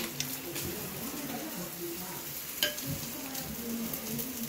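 Lamb skewers sizzling on a barbecue grill, a steady hiss, with one sharp tap about two and a half seconds in.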